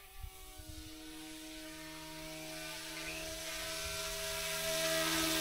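Remote-control scale AH-64 Apache helicopter's electric motor and rotor whining steadily in several tones, growing steadily louder. A few low bumps sound in the first second.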